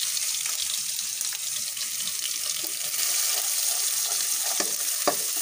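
Sliced onions and ginger-garlic sizzling steadily in hot oil in a wok while a wooden spatula stirs them. The spatula knocks against the pan a couple of times near the end.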